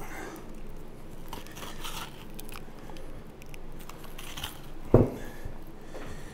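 A knife cutting and scraping along bone while the meat is torn away from the shoulder blade of a dry-aged beef forequarter, in short scratchy strokes. One sharp thump about five seconds in.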